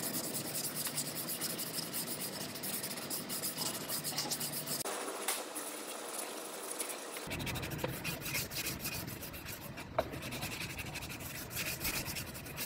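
Hand sanding block rubbed back and forth over cured body filler on a Jeep Wrangler's front fender corner, a dry rasping scrape with each quick stroke as the filler is shaped down.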